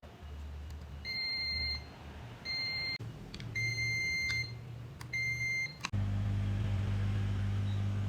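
Digital multimeter's continuity beeper sounding four times in short, uneven beeps of about half a second to a second each, as the probes make and break contact. Near the end a steady low hum starts suddenly.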